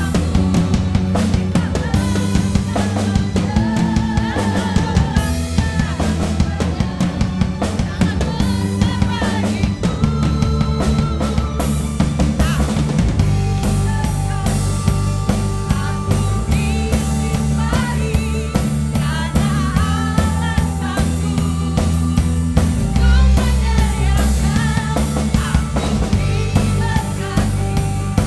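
A band playing a praise-and-worship song: a drum kit with bass drum and snare hits driving a steady beat, a bass guitar holding low notes, and melody lines on top.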